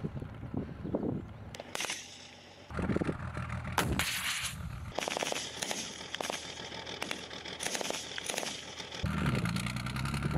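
Small-arms gunfire: a few single shots, then a long stretch of rapid bursts from a machine gun and assault rifles. A low rumble sits under it near the start and again near the end.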